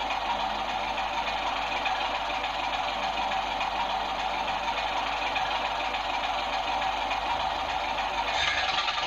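Sound-fitted model diesel locomotive idling, its engine recording played steadily through the model's small speaker. A louder hiss comes in near the end.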